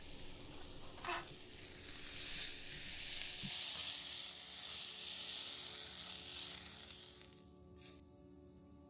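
Omelette sizzling in a hot frying pan, a steady hiss that swells and then fades out about seven and a half seconds in, when soft music comes in.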